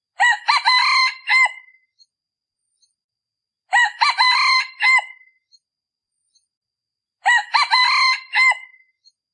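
Male junglefowl decoy rooster crowing three times, each a short clipped crow of about a second and a half, about three and a half seconds apart. This is the call used to lure wild junglefowl.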